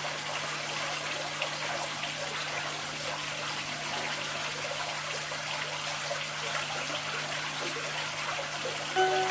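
Water from a koi-pond waterfall splashing and trickling steadily, with a steady low hum underneath. Music comes in right at the end.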